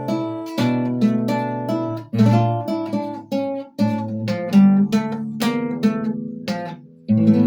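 Acoustic guitar strumming and picking chords in an instrumental passage with no singing, each strum ringing out and fading before the next.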